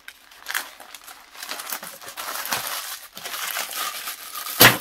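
Thin white packaging bag crinkling and rustling as it is pulled open and handled, with irregular sharp crackles and one loud crackle near the end.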